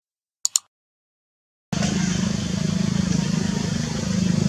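Two quick clicks of a mouse-click sound effect as the cursor presses the Subscribe button. After a second of silence, steady outdoor background noise with a low rumble starts abruptly and runs on.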